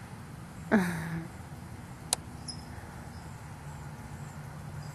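A person's brief exclamation about a second in, falling steeply in pitch and then held low, over a steady low background hum. A single sharp click follows about a second later, with a few faint, short high chirps.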